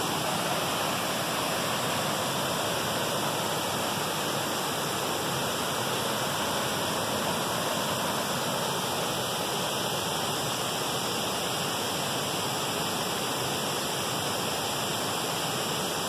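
Wide forest waterfall pouring over a rock ledge and churning over the rocks below, a steady, even rush of water.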